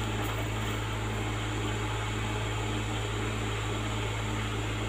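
Excavator's diesel engine running steadily, a low even drone with no change in speed.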